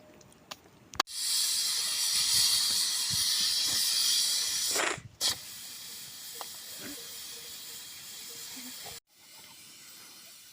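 Pressure cooker letting off steam: a loud hiss that starts suddenly about a second in, dips briefly around five seconds, and carries on quieter until it cuts off near the end.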